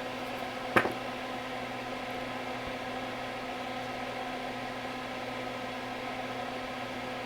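Steady whirring hum of a small fan or motor, with a single sharp click about a second in.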